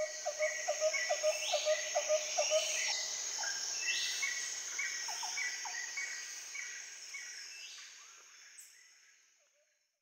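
Jungle ambience of birds and insects: repeated short bird chirps, about three a second, and higher sweeping calls over a steady high insect drone. It fades away from about six seconds in.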